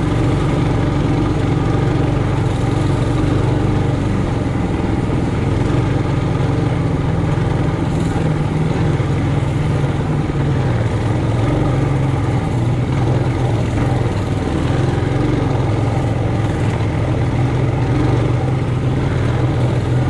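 Single-cylinder four-stroke engine of a Trailmaster Hurricane 200X mini bike running steadily, its pitch wavering slightly.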